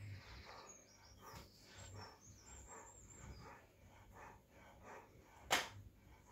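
Newfoundland dog panting in first-stage labour, soft quick breaths about three a second. Faint bird chirps in the first half, and a sharp click near the end.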